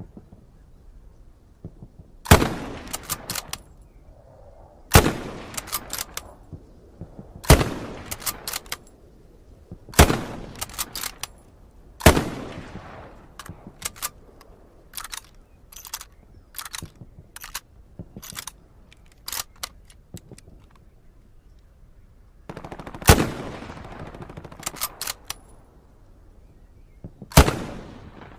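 M1903 Springfield bolt-action rifle (.30-06) firing seven single shots, each followed by a few clicks of the bolt being worked. A longer run of clicks fills a gap in the middle: five shots come about two and a half seconds apart, and two more follow after the clicks.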